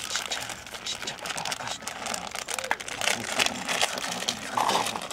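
Dense crinkling and rustling, made up of many quick small clicks that grow louder about halfway through, with voices in the background.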